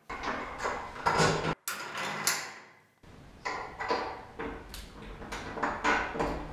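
Knocks and clatter of a bed's black end panel being handled and fitted against its metal frame, in a few short spells of irregular knocks that start and stop abruptly.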